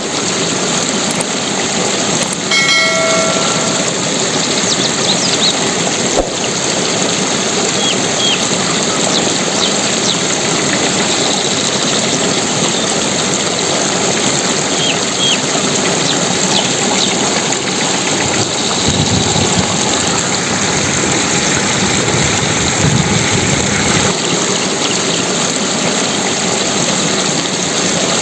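Steady, loud rushing water, with a brief pitched tone about three seconds in and a few faint high chirps.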